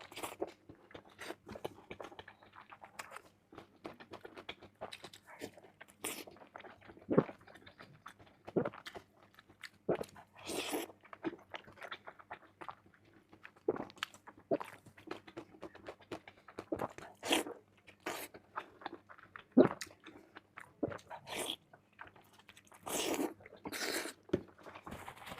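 A person chewing and biting beef tendon close to the microphone: irregular wet clicks, smacks and crunches, some louder than the rest.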